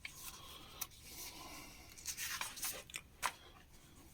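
Faint rustle of paper magazine pages being handled and turned, with a few brief crisp rustles: about a second in, around two and a half seconds, and just after three seconds.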